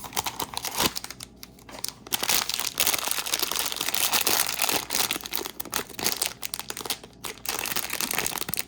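Blind-bag packaging crinkling and tearing as it is opened by hand, a dense run of crackles that starts softly and gets busier about two seconds in.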